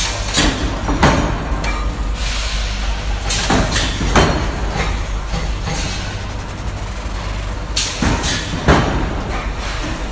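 Factory floor noise: a steady low hum with irregular clanks and bangs from metalworking, several in quick succession about a second in, again around three to four seconds in, and near the end.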